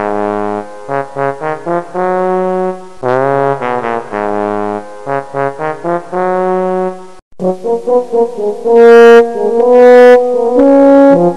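Brass-band music: a brass tune of short and held notes plays the same phrase twice, then, after a brief gap about seven seconds in, moves to louder long held notes.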